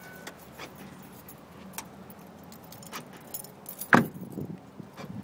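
Small clicks and jangling of keys and handling as someone climbs out of a car, with one loud thump about four seconds in as the car door swings shut, followed by a few smaller knocks. A car's repeating warning beep cuts off just as it begins.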